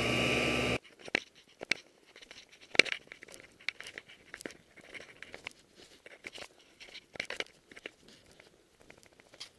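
A snowmobile engine running, cut off abruptly less than a second in. Then footsteps crunching through deep snow: irregular sharp crunches, about one a second.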